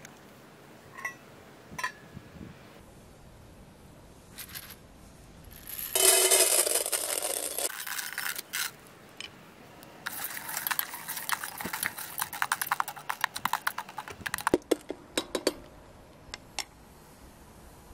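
Dried popcorn kernels poured from a metal cup into a stainless steel pan: a loud rushing rattle of kernels hitting the metal, then a few seconds of dense, fast clicking as the kernels rattle around the pan. A few small clinks come in the first couple of seconds.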